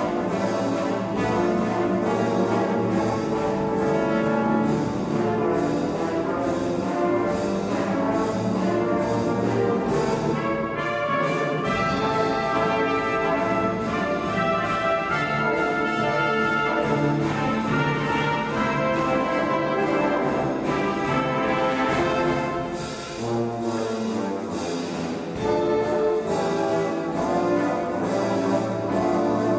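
Brass ensemble of trumpets and tuba playing a piece together, briefly softer about 23 seconds in.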